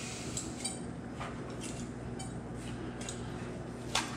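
Kitchen scissors trimming fat off raw chicken breast: several light snips and clicks, with one sharper click near the end, over a steady low hum.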